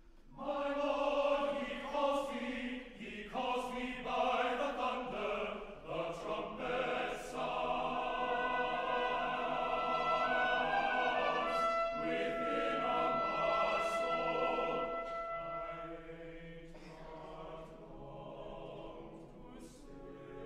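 Mixed choir singing in parts. It comes in loudly about half a second in after a quiet moment, holds long sustained chords in the middle, and grows softer near the end.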